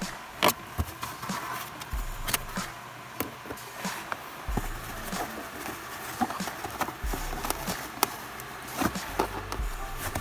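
Irregular clicks, taps and knocks of hands handling and pressing LED light strips and their wiring into place inside a car's cabin. Low bass notes of background music run underneath.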